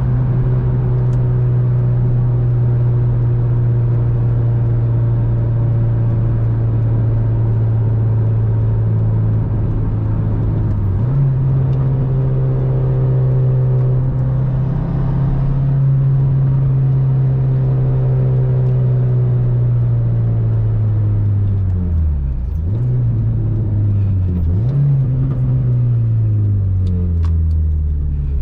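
Acura RSX's swapped-in 2006 Type S 2.0-litre four-cylinder engine droning steadily at highway cruise, heard from inside the cabin over road noise. About eleven seconds in the pitch steps up a little; later the revs fall off as the car slows, dip and climb back twice a few seconds apart, and settle lower near the end.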